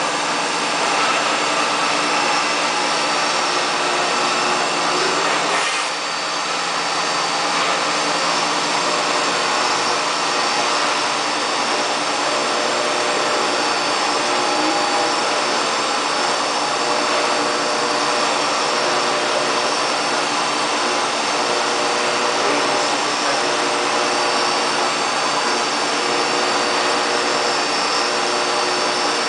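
High-speed CNC milling machine cutting aluminium: a steady hiss under several held whining tones from the spindle, with a brief dip about six seconds in.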